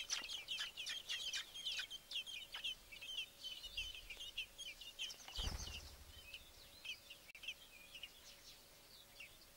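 Fieldfare nestlings begging: a rapid, high-pitched chorus of chirps, dense at first, growing sparser and fainter after the adult has fed them. A soft low thud about five and a half seconds in.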